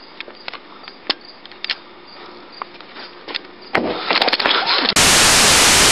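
Quiet room tone with scattered handling clicks, then a louder rustle as the camera is swung about just before four seconds in. For about the last second comes a loud, flat burst of harsh white-noise static, an edited-in horror jump-scare effect.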